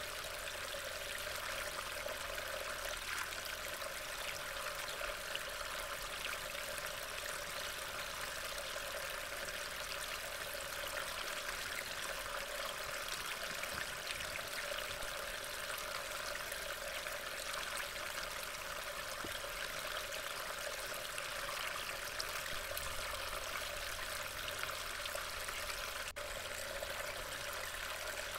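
Steady rain, a constant hiss of falling water picked up by a trail camera's microphone, with a brief dropout near the end.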